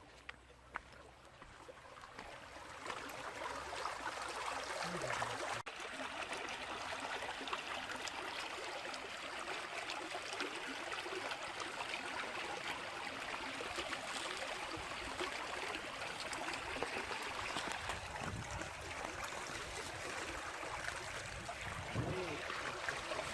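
Flood water running steadily, a stream-like rush that grows louder over the first few seconds and then holds even.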